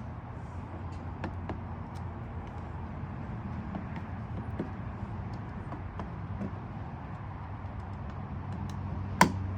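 Scattered light plastic clicks from car trim and light parts being handled and fitted, over a steady low rumble, with one sharp click a little after nine seconds in.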